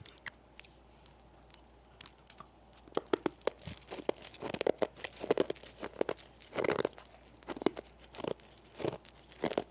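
Hard star candies (byeolsatang) being crunched between the teeth close to the microphone: a few faint clicks at first, then repeated irregular crunches from about three seconds in.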